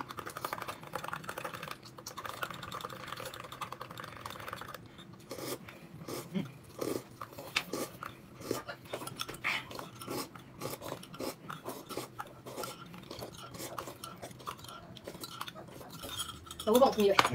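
A bowl of noodles being eaten: chopsticks click and knock against the bowl, with chewing. A short voice sound comes near the end.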